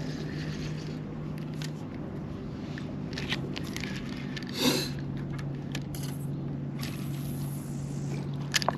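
A steady low motor hum that weakens about two seconds in and returns strongly about halfway, with scattered light clicks and a brief swish a little before the middle.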